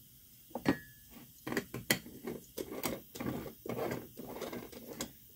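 A Bialetti moka pot being put together: irregular metal clicks, clinks and short scrapes as the coffee-filled funnel basket is set into the base and the top chamber is fitted and screwed on.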